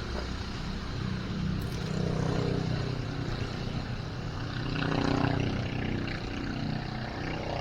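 An engine's low droning hum that swells and fades twice and sounds almost like a helicopter.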